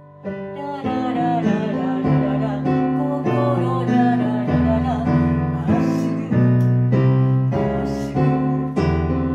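Music played on a Roland RD-700 stage piano, chords changing about every second over a deep bass line, with other instruments playing along.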